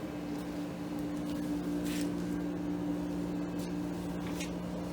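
GE Super Thrust 10,000 BTU window air conditioner running on high fan: a steady hum, with a second, lower tone joining about a second in. A few brief clicks sound over it.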